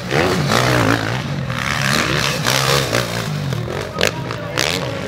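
MX1 motocross bikes racing past, their engines revving hard and rising and falling in pitch as the riders work the throttle.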